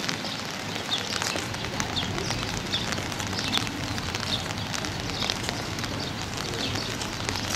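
Outdoor ambience in light rain: a steady hiss with scattered crackling ticks, and short high chirps, like a small bird's, repeating about once a second.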